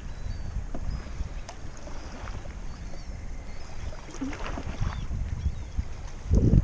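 Wind buffeting the microphone over a kayak on choppy water, with small waves splashing against the hull and one louder thump near the end.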